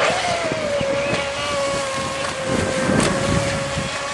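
Electric RC speedboat's Lehner brushless motor running at high speed: a steady high whine that drops slightly in pitch as it starts, then holds as the boat planes away. Wind gusts on the microphone underneath.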